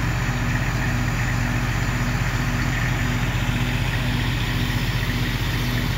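Fire engine's engine running steadily at the pump while it feeds the hose lines: a continuous low drone with a low tone pulsing about twice a second.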